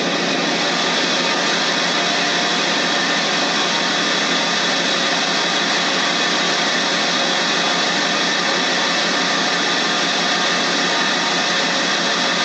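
Engine running steadily at a constant speed, an even mechanical drone with no change in pitch.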